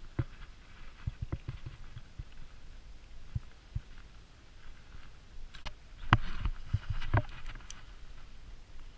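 Handling noise from hands working a hooked bluegill and fishing tackle: scattered soft knocks and taps, with a denser run of louder knocks and clicks about six to seven seconds in.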